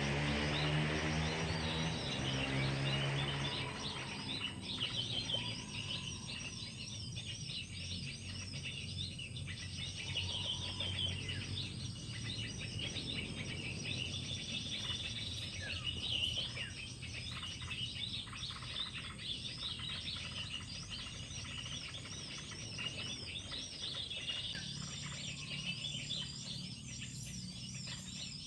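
Many small birds chirping and twittering at once in a dense, unbroken chorus. For the first few seconds a low engine hum is also heard, fading out.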